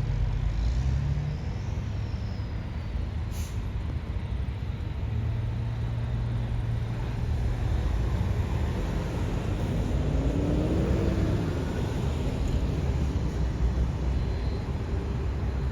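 Steady low rumble of jet airliner engines at taxi power, heard from the airport perimeter, with a faint tone that rises and falls about two-thirds of the way through.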